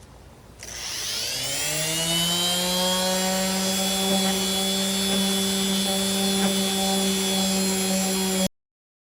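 Electric power sander motor spinning up and running at a steady speed, sanding down hardened Bondo filler, then cutting off abruptly near the end.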